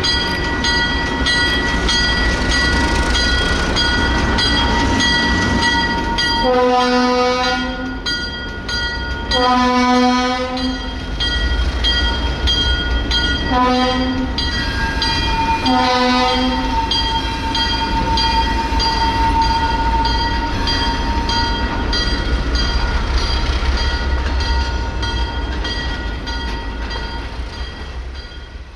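ALCO S6 switcher diesel locomotive's engine rumbling as it pulls a freight train, with its air horn sounding four blasts, long, long, short, long: the standard signal for a grade crossing. The sound fades out near the end.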